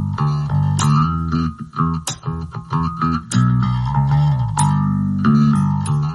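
Background music led by plucked guitar and bass, with notes struck every half second or so.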